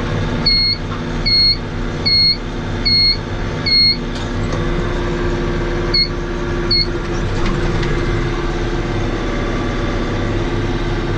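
Tractor engine running steadily under load, with a short electronic beep repeating about every 0.8 seconds, five times in the first four seconds, then twice more around six to seven seconds in.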